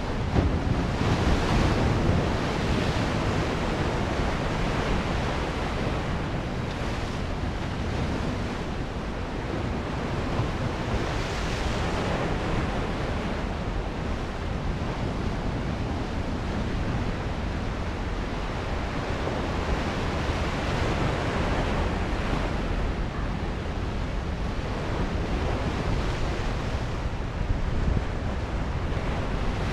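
Ocean surf breaking and washing over rocks at the foot of sandstone sea cliffs, a steady rush that swells as each larger wave comes in, about every ten seconds. Wind rumbles on the microphone underneath.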